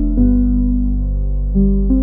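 Soft new-age background music: sustained low notes that change every half second or so.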